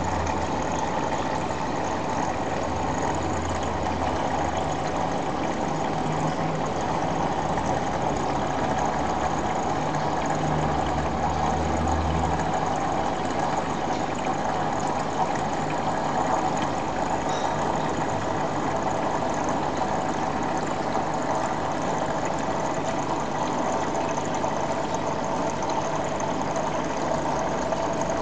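Steady machine hum with a hiss, with a deeper hum underneath that fades out about twelve seconds in.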